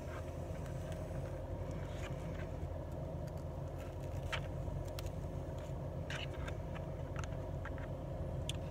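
Steady low hum of a car running inside the cabin, with scattered faint clicks and scrapes of a fork working a takeout plate.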